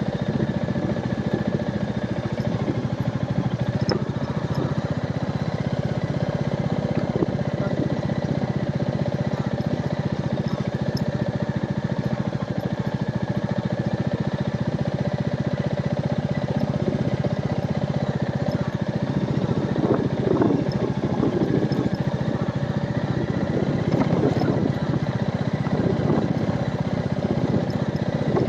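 Royal Enfield Meteor 350's single-cylinder engine running steadily as the motorcycle is ridden, with a few brief louder surges about two-thirds of the way through.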